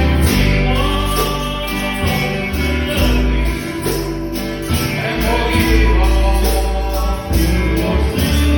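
Gospel church music with a bass line, a tambourine on a steady beat, and singing.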